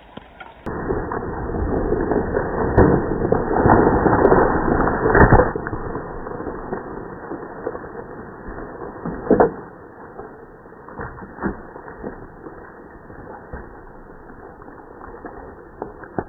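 A felled tree coming down: several seconds of wood cracking and branches crashing, ending in a heavy thud about five seconds in. A second crash follows a few seconds later, then scattered snaps and rustling as it settles.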